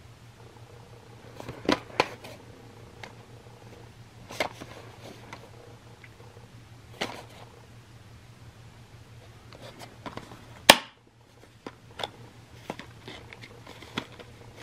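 Plastic blister pack on a cardboard backing card being handled and turned over: scattered crinkles and clicks, the loudest a sharp click about eleven seconds in.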